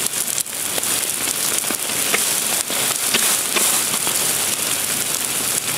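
Flames burning around 275-gallon plastic totes: a steady hiss with scattered sharp crackles and pops.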